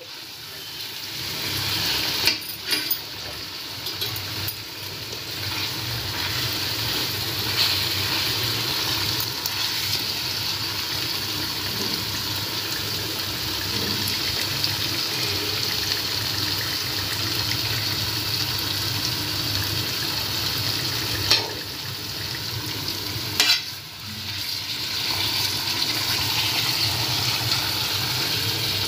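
Marinated chicken pieces frying in oil in a kadai on a low flame: a steady sizzle, with a few brief clicks near the start and again about three-quarters of the way through.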